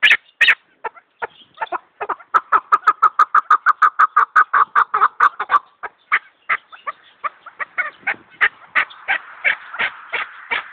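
Chukar partridge (chakor) calling: a string of short, repeated clucking notes that speed into a fast even run of about six a second for a few seconds midway, then carry on more raggedly toward the end.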